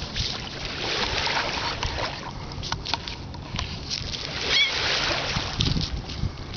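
Small waves lapping on a pebbly lake shore, with wind gusting on the microphone and pebbles clicking under small footsteps. A brief high-pitched call sounds about halfway through.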